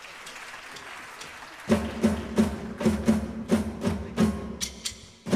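An ensemble of electronic drums starting a piece: a rising hiss, then about a second and a half in a steady beat of punchy hits at about three a second, briefly dropping out near the end.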